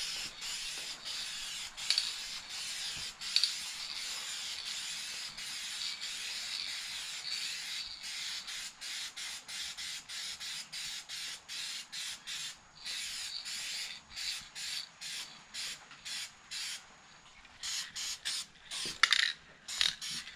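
Aerosol spray paint can hissing as red paint is sprayed onto an engine block: steady spraying for the first several seconds, then many short spurts from about eight seconds in.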